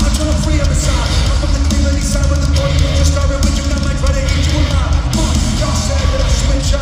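A live rock band playing loud, continuous music, electric guitar and drums through the arena's PA, heard from far back in the stands.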